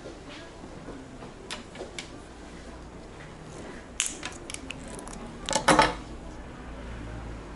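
Small clicks and clinks of glass contact lens vials and a small metal tool being handled: a few faint clicks, a quick run of sharp clicks about four seconds in, and a louder cluster of clinks a second and a half later.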